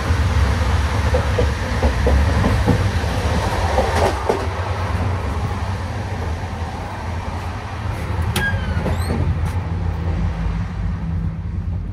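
Moving Indian Railways passenger train heard from inside: a heavy steady rumble with rattling knocks from the gangway between coaches. It gets quieter about five seconds in, and a short high falling squeak comes about eight seconds in.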